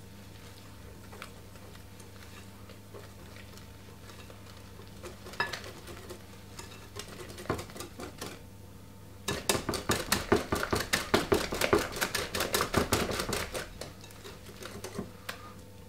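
Wire whisk stirring cake batter in a glass bowl. It starts slow and quiet with a few scattered taps, then a little over nine seconds in it turns to fast, rhythmic whisking, the wires clicking against the bowl several times a second for about five seconds before slowing again.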